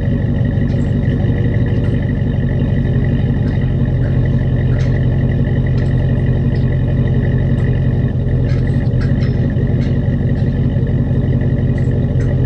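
2008 GMC Sierra Denali's 6.2 L V8 idling steadily through its new Flowmaster Super 40 exhaust and dual tips, a low, even drone.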